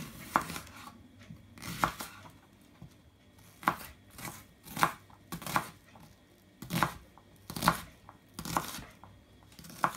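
Knife dicing an onion on a plastic cutting board: about ten separate cuts, roughly one a second, each a crisp slice through the onion onto the board.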